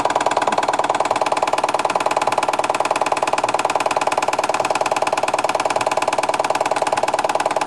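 Bing toy steam engine running steadily on live steam and driving a model workshop's belts, pulleys and line shafts: a fast, even clatter with a steady tone running through it.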